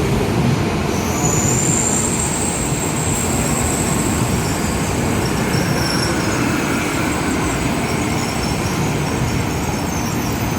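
N700-series Shinkansen train running along the platform, a steady rumble of wheels and rushing air, with a thin high whine that comes in about a second in and holds.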